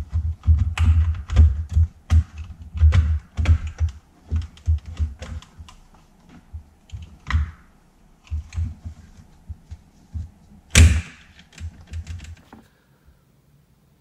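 Irregular plastic clicks, knocks and dull thuds as the Porsche 997's climate-control unit is worked into the centre console and its side clips are pressed home. One loud, sharp snap comes about three quarters of the way through.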